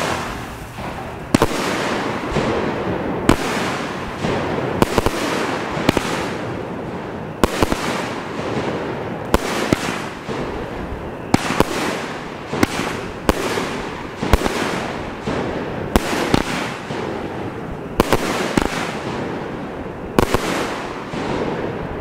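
A 19-shot, 350-gram consumer firework cake firing shot after shot, with a loud bang right at the start and then roughly one bang every second or two, coming quicker in the second half. Each bang trails off into a fading hiss and crackle of burning stars.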